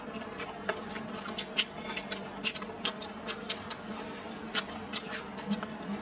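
Close-up eating sounds: chewing a mouthful of rice with irregular wet clicks and lip smacks, several a second, over a faint steady hum.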